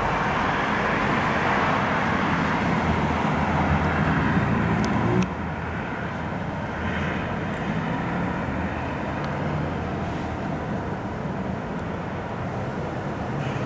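Jet engine noise from a Boeing 787-9 Dreamliner: a steady, loud rushing rumble. It drops suddenly in level about five seconds in, then carries on slightly quieter.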